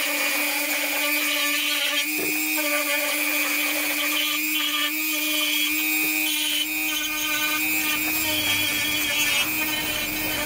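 Dremel 4000 rotary tool with a wide milling bit running steadily, carving a rounded pit into a wooden board: a constant whine from the motor with the rasping of the bit cutting the wood.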